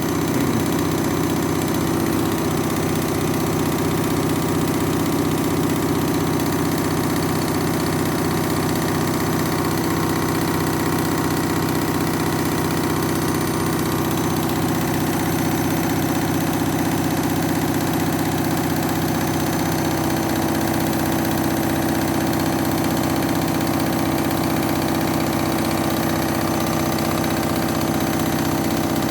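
Washing machine spinning at high speed in its final spin with an unbalanced load of towels: a steady loud drone of motor and drum, with no change in pitch.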